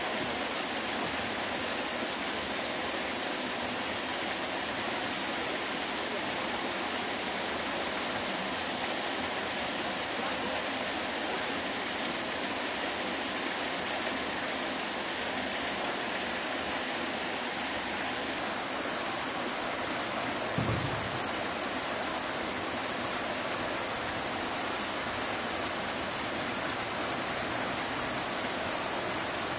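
Steady rushing of running water, with one brief low thump about two-thirds of the way through.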